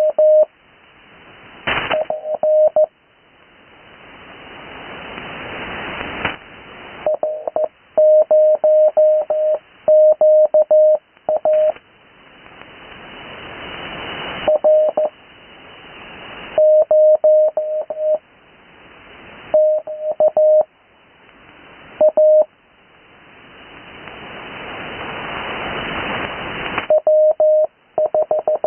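Morse code (CW) received on the 80 m amateur band: a steady tone near 600 Hz keyed in short groups of dots and dashes, with long gaps between characters, spelling out amateur call signs. Band hiss fills each gap, growing steadily louder until the next group of tones cuts in.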